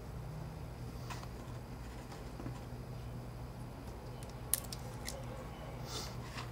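A few faint, sharp clicks of small phone parts and tools being handled during iPhone 4 reassembly, the sharpest about four and a half seconds in, over a steady low electrical hum.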